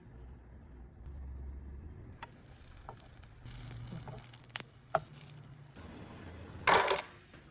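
Cooking sounds from making mini pancakes: a few light clicks and taps of a utensil against a pan over a low steady hum, then one brief louder noise near the end.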